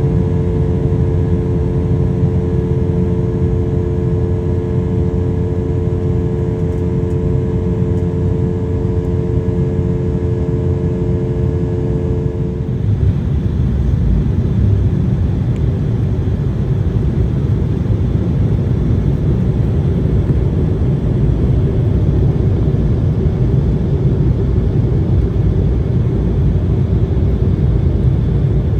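Airliner cabin noise: the steady rumble of jet engines and airflow. About thirteen seconds in, a steady hum of tones stops and the rumble turns rougher and broader.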